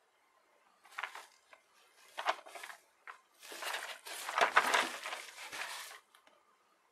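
Cardboard shipping box handled in gloved hands: a few short scuffs, then a longer spell of rubbing and rustling as the box is turned over and the hands slide across the cardboard.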